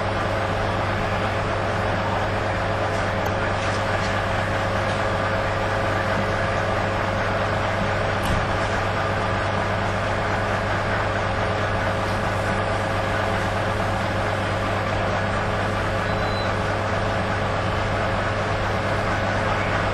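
Fire engine's engine running at the fire, a loud, steady drone that does not change throughout.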